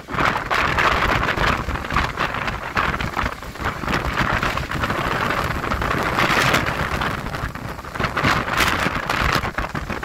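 Strong gusting wind of a dust storm buffeting the microphone, a loud rushing hiss with a rumbling low end that swells in gusts about a second in and again around six and eight seconds.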